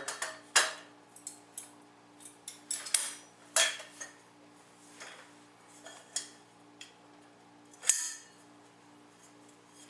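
Steel tube sections and spring button clips of a portable hunting chair being handled and fitted: irregular metallic clanks and clicks, the loudest about half a second, three and a half and eight seconds in, over a faint steady hum.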